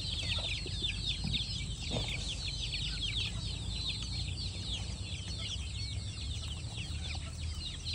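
A flock of young KUB kampung chickens peeping without a break, many short, high, falling chirps overlapping one another as they feed.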